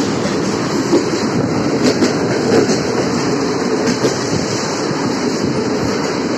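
Moving train heard from an open coach doorway: steady rumble of wheels on rail with a few sharp clicks over rail joints.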